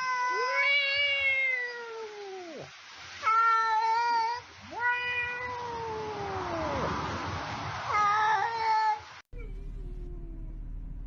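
A black cat gives a series of long, drawn-out meows, four or five in turn, several sliding down in pitch at the end. About nine seconds in they cut off suddenly, leaving a faint low hum.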